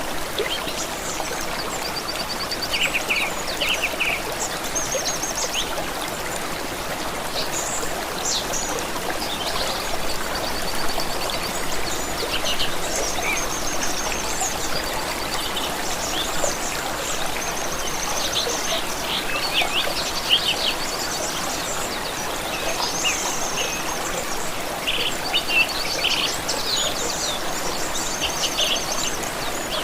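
Running stream with a steady trickle and babble of water, and several songbirds chirping, trilling and whistling over it throughout.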